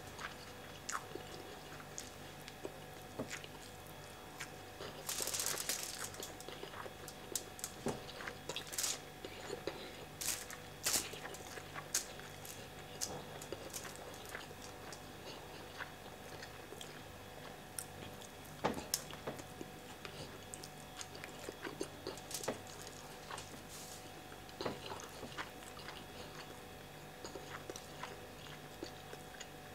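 Close-miked chewing and mouth sounds of a man eating jollof rice by hand: scattered wet smacks and crunches throughout, with a louder burst of noise about five seconds in. A faint steady hum runs underneath.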